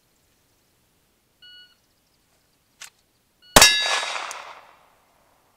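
Shot timer start beep, then about two seconds later a single shot from a Glock 19X 9mm pistol and the clang of a steel target ringing out and fading over about a second. The draw from concealment to the shot took 2.15 seconds.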